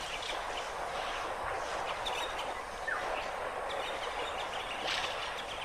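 Steady outdoor hiss with a few faint bird chirps.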